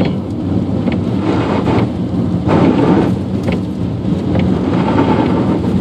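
Heavy rain beating on a car's windshield and roof, heard inside the moving car over a steady low engine and road rumble, with scattered sharp ticks of drops.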